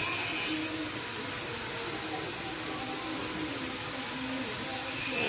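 Steady whooshing drone of a running machine, even and unbroken throughout.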